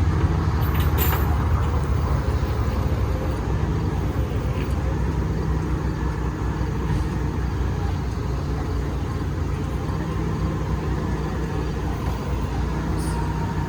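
A motor vehicle engine running steadily, a low rumble with no change in pace.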